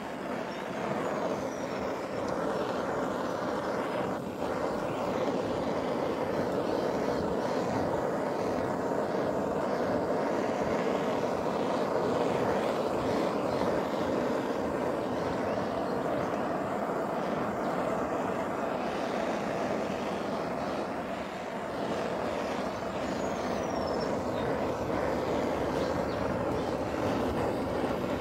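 Handheld gas blowtorch burning with a steady flame roar as it is passed over carved wood, dipping slightly about three quarters of the way through.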